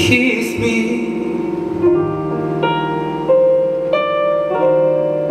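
Stage keyboard playing a slow piano part: sustained chords struck about every two-thirds of a second, each ringing on into the next. In the first second a sung note trails off under a short burst of noise.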